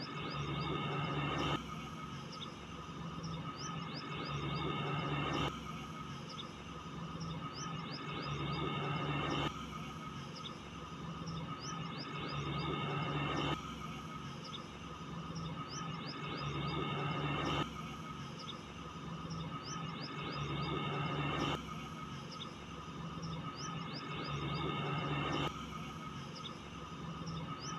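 A short soundtrack loop of bird chirps over a steady hum, restarting abruptly about every four seconds.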